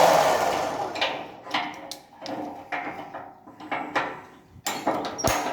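An electric winch motor runs as the cable is wound in by short jogs, then dies away over about the first second or two. Scattered sharp mechanical clicks and knocks follow.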